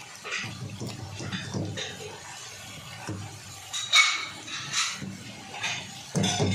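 Spatula stirring and scraping chicken and onions frying in a nonstick wok: irregular scrapes with a few sharper knocks against the pan, the loudest about four seconds in.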